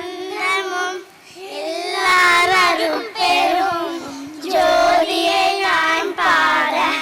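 Child voices singing a slow Tamil devotional song, holding and bending long notes in phrases with short breaks for breath.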